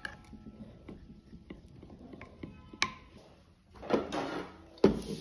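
Steel spoon stirring thin batter in a glass bowl, with light clinks and scrapes against the bowl and one sharper clink about three seconds in. A knock comes near the end.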